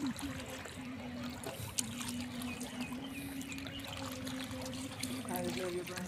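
River water lapping and trickling, as against a small boat's hull, with a faint low hum coming and going underneath.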